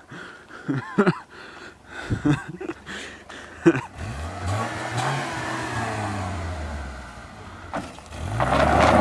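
Saturn S-Series sedan's four-cylinder engine revving up and falling back as the car slides and spins its wheels on gravel. Near the end the revs climb again with a louder rush of tyres and spraying gravel.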